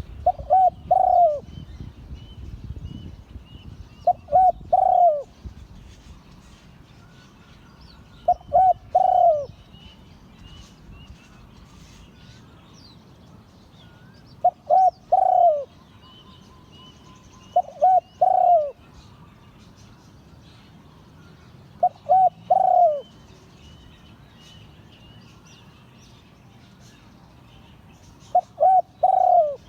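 Spotted dove cooing: seven phrases, each two short notes followed by a longer falling note, repeated every four to six seconds. Faint chirping of other small birds runs beneath.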